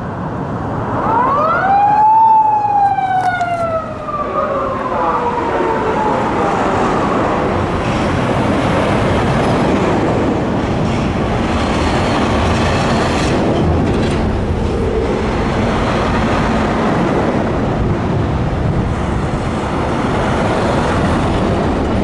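Police siren of an unmarked Toyota Crown Athlete patrol car sounding one wail, rising sharply about a second in and then falling slowly over several seconds: the order to a speeding car to pull over. Steady road noise from the moving cars follows.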